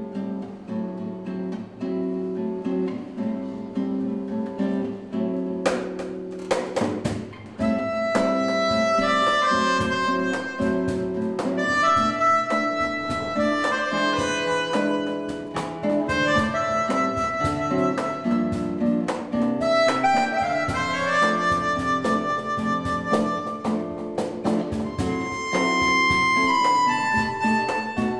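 Live jazz ballad: an acoustic guitar plays soft repeated chords, and about eight seconds in a vibrandoneon, a free-reed keyboard wind instrument, enters with a held melody over it, accompanied by light percussion strikes.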